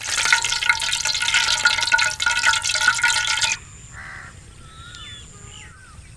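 Rice pakoras sizzling in hot deep-frying oil in a large aluminium pot. The sizzling cuts off abruptly about three and a half seconds in, leaving quieter outdoor bird calls: one short harsh call, then a few whistled notes.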